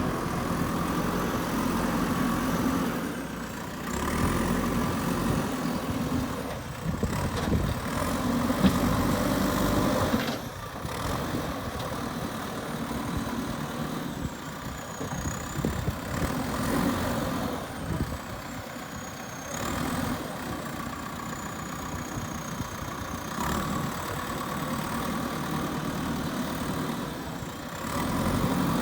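Diesel engine of a JCB 3DX backhoe loader running under working load, its note and loudness shifting up and down, with a faint high whine gliding in pitch over it.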